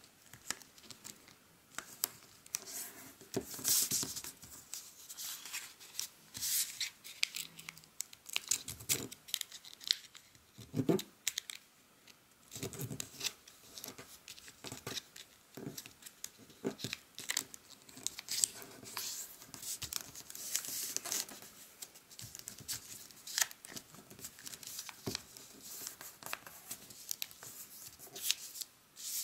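Origami paper rustling and crinkling as it is folded by hand, with irregular short scrapes as fingers press and run along the creases.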